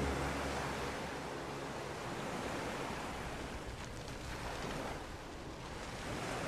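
Steady, even rushing noise with no music or voices.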